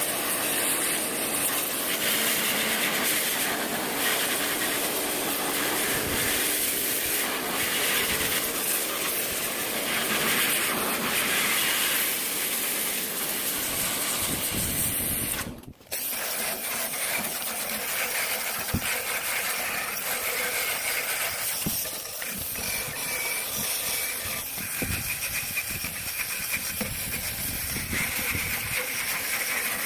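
Water spraying hard in a steady hiss while parts of a disassembled top-load washing machine are washed down. The spray stops abruptly for a moment about halfway through, then carries on.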